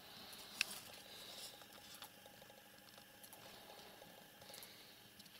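Faint rustling and light scratching of a cat picking its way over papers and plastic bags, with one sharp click about half a second in and a few soft ticks after.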